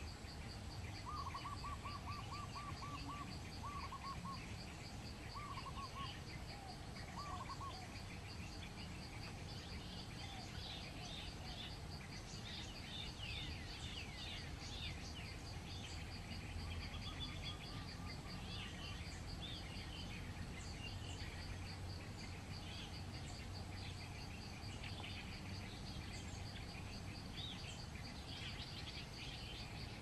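Doves give rapid runs of repeated cooing notes in the first several seconds, then small birds chirp and twitter, over a steady pulsing insect drone.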